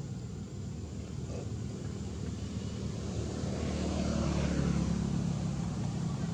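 Low, steady engine drone of a passing motor, growing louder about three seconds in and peaking a second or two later.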